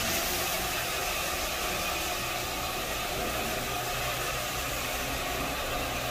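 Single-disc floor machine running steadily as its pad turns on a hardwood floor: an even motor hum under a broad whooshing hiss.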